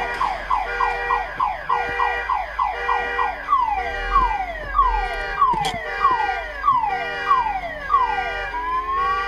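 Car alarm cycling through its tones: quick falling chirps about four a second, then slower falling whoops about two a second, then a rising tone near the end. It has been set off by a collision, an SUV striking a parked car.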